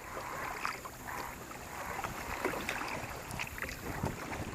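Kayak paddling on a river: the paddle dipping and water splashing and trickling, in irregular splashes over a steady water noise.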